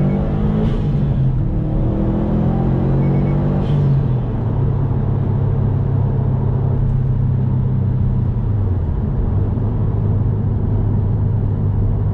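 Subaru WRX STI's turbocharged flat-four engine under way, heard with its new aftermarket intake's induction noise. The revs climb over the first few seconds, with a short hiss about a second in and another near four seconds, then hold steadier and drop in pitch about nine seconds in.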